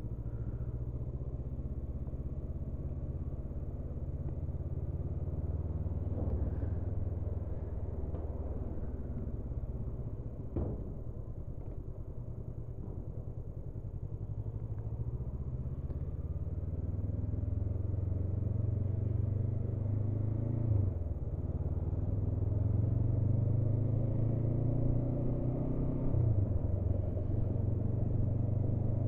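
Honda CB500F's parallel-twin engine running during a ride, heard from on board. In the last third the revs rise with acceleration and drop back sharply twice, at upshifts, and the engine gets louder as the bike picks up speed.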